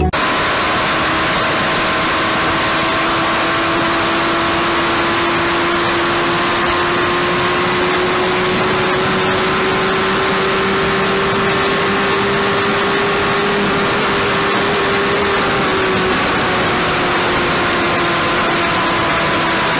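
Inline-four engine of a Suzuki GSX-R sportbike running at high revs in sixth gear near 290 km/h, its steady note climbing slowly and easing off slightly about sixteen seconds in. Heavy wind rush on the bike-mounted camera runs under it.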